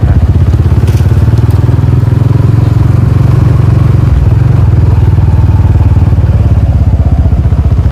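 Small motorcycle engine running steadily close by, a low, even, rapid putter that briefly eases about four seconds in.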